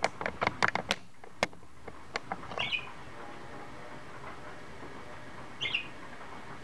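Budgerigars chirping: two short chirps, one about two and a half seconds in and one near the end. A quick run of sharp clicks comes in the first second, with a few more single clicks after it.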